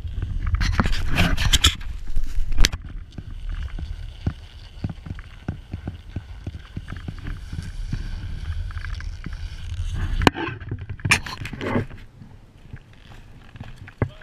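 Skis scraping and chattering over hard, wind-packed snow, with wind rumbling on the camera microphone, and two louder scraping bursts, one near the start and one about eleven seconds in. The wind rumble cuts off at about ten seconds and the rest is quieter.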